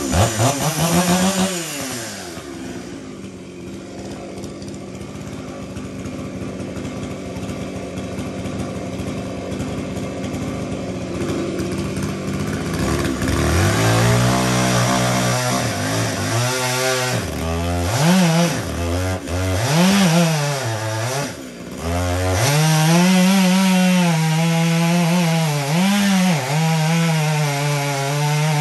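Two-stroke chainsaw dropping from a rev to idle and idling for about ten seconds. About halfway through it is revved up and down several times, then held at steady high speed while cutting wood.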